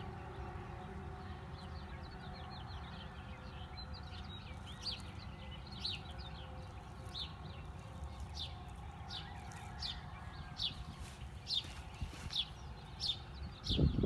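A bird calling with short, high, downward-slurred chirps, repeated and coming quicker and louder toward the end, over a steady low outdoor rumble.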